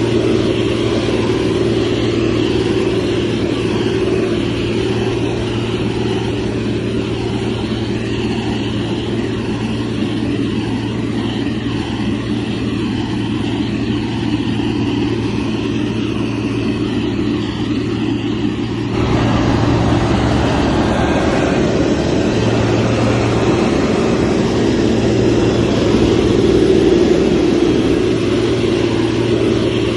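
Heavy construction machine's diesel engine running steadily with a low drone. About two-thirds of the way through the sound abruptly gets louder and fuller, as the engine takes more load or the machine comes closer.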